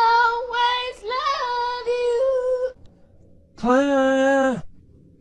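A high-pitched voice singing long held notes in short phrases, which stop about two and a half seconds in. Near the end comes one steady, drawn-out vocal call about a second long, lower in pitch.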